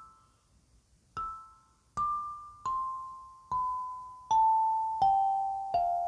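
Muslady 17-key clear acrylic kalimba with steel tines, thumb-plucked one note at a time. After a pause of about a second, seven notes come about three-quarters of a second apart, stepping down in pitch, each ringing on as it fades.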